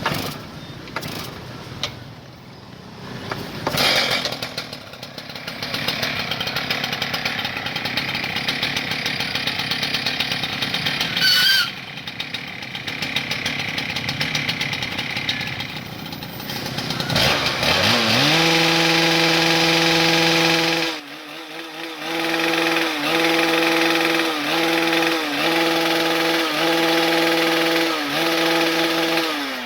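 STIHL TS800 cut-off saw's 98.5 cc single-cylinder two-stroke engine running unevenly at low speed, then revved up to a high, steady scream about two-thirds of the way through. It drops off for a moment, is revved again and held with brief throttle dips about once a second, then falls away at the end.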